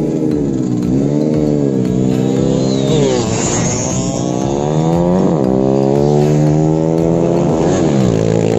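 Road-race motorcycle engines revving hard, their pitch climbing and falling with sharp dips and recoveries about three and five seconds in, over a steady low drone.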